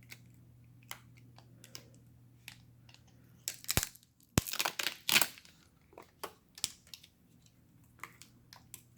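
Plastic crinkling and tearing as film or backing is peeled off during a MacBook Pro battery replacement, loudest in a burst of rustling a few seconds in, with scattered sharp clicks.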